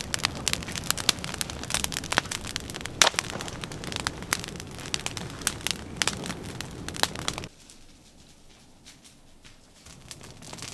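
Campfire of brush and dry twigs burning hard, crackling with frequent sharp pops over a low rush of flame. About three-quarters of the way through, the sound drops suddenly to a faint hush.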